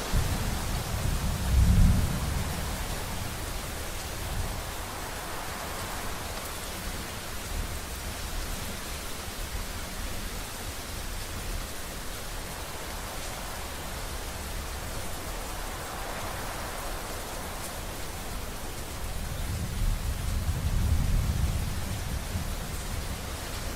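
Steady rain with low rolling thunder: one rumble in the first few seconds, loudest about two seconds in, and another longer one near the end.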